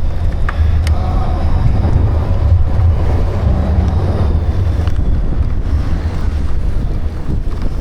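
Wind buffeting the microphone outdoors: a loud, uneven low rumble, with one sharp click about a second in.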